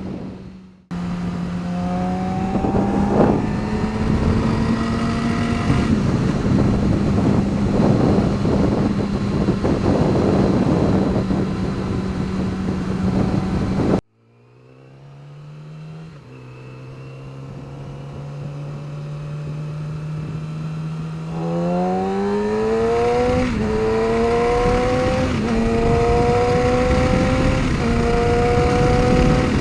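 2009 Yamaha R6 inline-four engine held at steady high revs, then in a second clip climbing from lower revs in steps back up to high revs. It is recorded for a ticking or knocking noise at 7,000 to 8,000 rpm, which the owner traced to a loose washer between the crash cage and the engine mounts.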